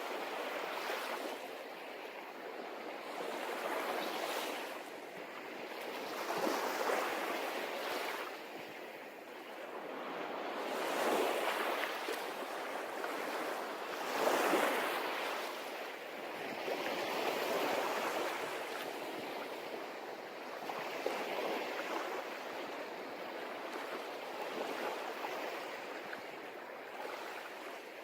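Waves washing in, a steady rush of water that swells and ebbs every few seconds, with the loudest surges about 11 and 14 seconds in.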